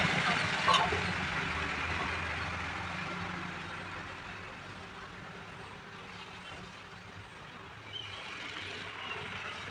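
Passing road traffic, a heavy vehicle's noise fading away over the first few seconds, over a steady low electrical hum, with one sharp click under a second in.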